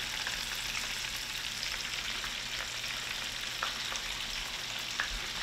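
Chicken frying in hot canola oil in a cast-iron skillet: a steady sizzle with a few small pops.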